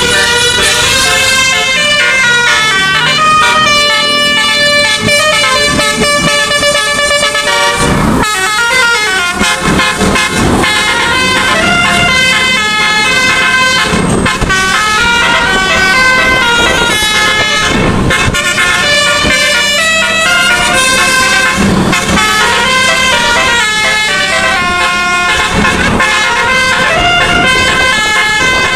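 Bus's nine-trumpet 'telolet basuri' musical air horn playing a fast tune, loud, its notes stepping rapidly from one pitch to the next without a break.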